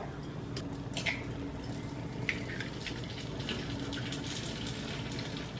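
Oil in a frying pan on a gas stove sizzling steadily under a low hum, with a few light clicks of a utensil against the pan.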